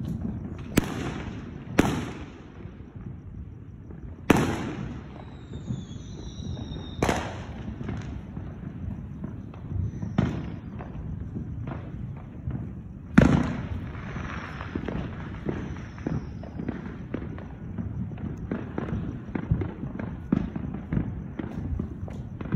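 Fireworks going off: a series of sharp bangs, the loudest about 13 seconds in, followed by a long run of rapid firecracker crackling.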